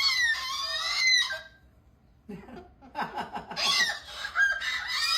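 Cockatoo giving loud, harsh squawking calls that bend in pitch. It falls silent for about half a second partway through, then starts again with a fast stuttering run of short calls and further squawks.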